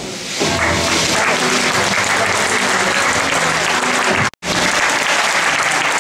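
Audience applauding, starting suddenly about half a second in and staying loud and even. The sound cuts out for an instant a little after four seconds.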